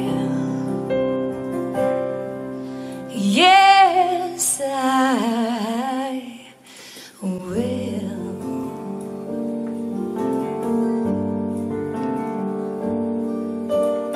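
Live acoustic duo: a woman singing a slow ballad with wide vibrato over acoustic guitar and a Yamaha keyboard. The music drops away briefly a little past halfway, then the keyboard carries on with a run of short notes.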